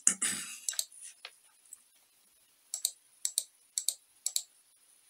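Computer mouse clicking: a couple of faint clicks early, then four sharp clicks evenly spaced about half a second apart, as the zoom tool is clicked to zoom the drawing in step by step.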